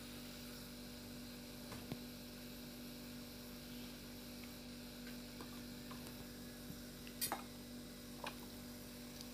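Faint steady electrical hum, with a soft click about two seconds in and a couple more near the end.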